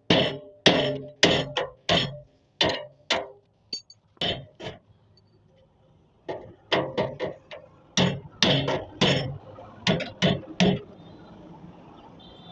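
Hammer blows on metal, each with a short ring. There is a run of about seven strikes, a pause, then a quicker run of about a dozen strikes.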